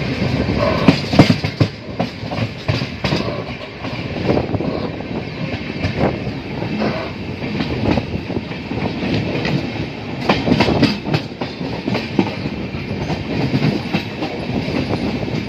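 Passenger train running at speed, its wheels clattering over the rail joints in repeated knocks over a steady rumble of the running coaches.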